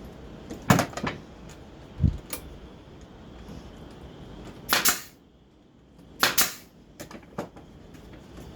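Brad nailer firing into wood pickets: a few sharp shots and knocks in the first couple of seconds, then two longer, louder bursts about a second and a half apart, with small clicks after.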